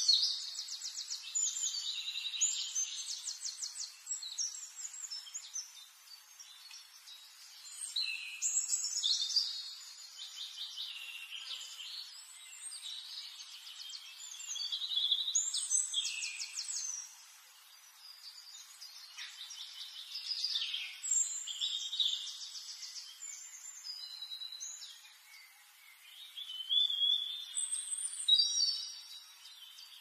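Aviary finches singing and calling: bouts of quick, high, buzzy trills and chirps come every few seconds over a faint steady hiss.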